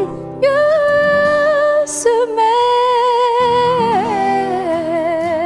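Female voice singing three long, held wordless notes with vibrato, gliding from one pitch to the next, over quiet accompaniment at the close of a Turkish ballad.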